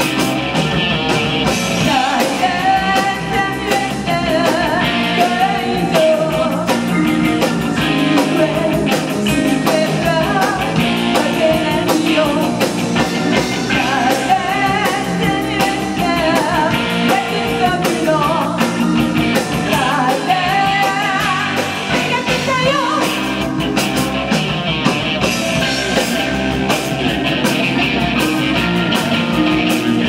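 Live rock band playing: a woman sings lead over electric bass, Roland Juno-G synthesizer keyboard, electric guitar and drums.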